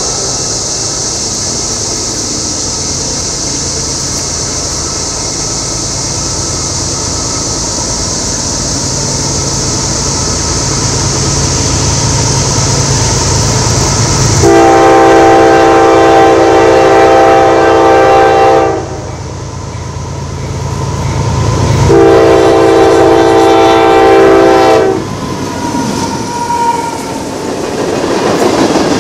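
A train running with a steady high hiss and a low rumble. About halfway through, its air horn sounds two long blasts, a chord of several tones each time, the first about four seconds and the second about three.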